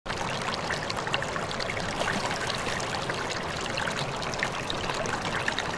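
Water of a shallow rocky stream below a waterfall, rushing and splashing in a steady stream of sound.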